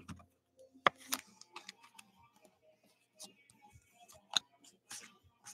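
Foil wrapper of a trading-card pack crinkling as it is torn open, then the cards rustling and snapping against each other as they are slid out and flipped through. Scattered sharp clicks, the loudest about a second in and another past four seconds.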